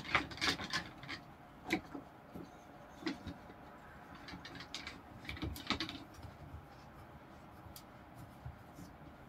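Light knocks and rubbing of plywood pieces being handled and fitted into a wooden corner clamp, a few scattered taps, most of them in the first second and around the middle.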